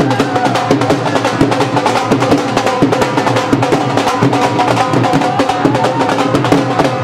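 Upbeat Punjabi dance song with a fast, busy drum beat under held instrumental notes.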